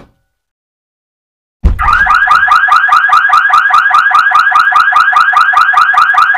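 An electronic alarm tone starts suddenly about a second and a half in and pulses rapidly and steadily, about six beeps a second.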